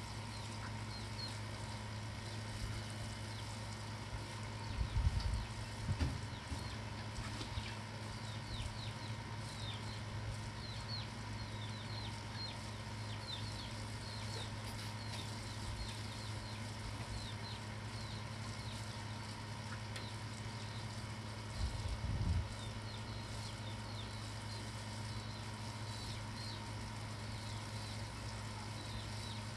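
Birds chirping in the background, many short falling chirps throughout, over a steady low hum. Two brief bumps of handling noise come about five seconds in and again a little past twenty seconds.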